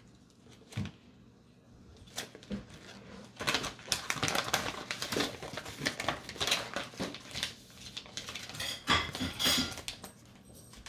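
A few light clicks, then a paper instruction leaflet being unfolded and handled, with dense crinkling and rustling.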